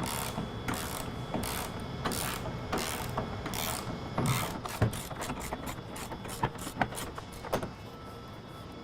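Socket ratchet on a 19 mm socket cranking the spare-tire carrier up tight, with a stroke about every 0.7 s, then quicker ratchet clicks that stop near the end.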